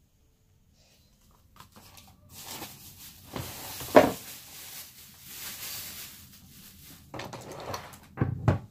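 Plastic wrapping rustling and crinkling as items are pulled out of a hard plastic tool case, with a sharp knock about four seconds in. Near the end, a few knocks and thumps as the cordless chainsaw body is lifted out of the case and handled on the wooden table.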